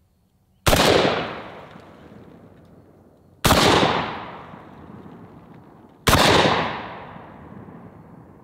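Three shots from an RIA VR60 semi-automatic 12-gauge shotgun, about two and a half seconds apart, each a sharp report followed by a long echoing fade. The first is birdshot; the gun cycles each round without a hitch.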